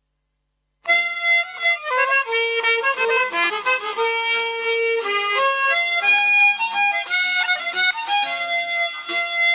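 A fiddle starts a waltz tune a little under a second in, after a brief silence, and plays on: a melody of held and quicker notes.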